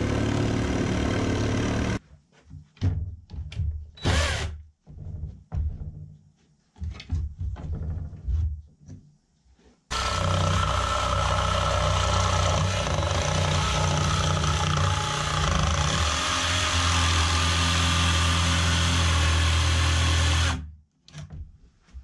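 DeWalt cordless jigsaw cutting through thick wooden barn siding. It runs steadily for about two seconds, then comes a stretch of short starts, knocks and handling, then it saws steadily again for about ten seconds and stops shortly before the end.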